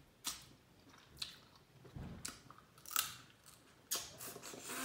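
Close-up eating sounds: biting and sucking at a crab leg shell and chewing, with several short sharp cracks or clicks about a second apart.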